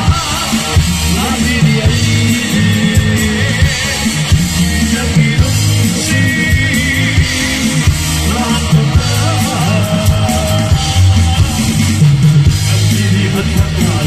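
Live band performing a Manipuri song through a PA: a male voice singing over electric guitar, bass and a steady drum beat.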